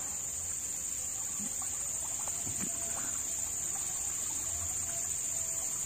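Steady high-pitched chorus of insects droning without a break.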